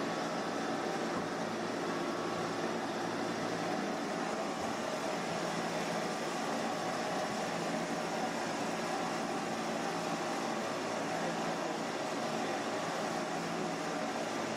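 Steady city street noise: an even hum of traffic and vehicle engines that stays at the same level throughout, with no distinct events.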